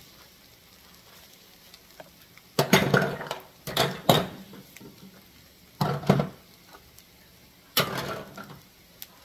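A spoon stirring and scraping a ground meat mixture in a skillet, in four short bursts of scraping against the pan, with a faint sizzle of the simmering food in between.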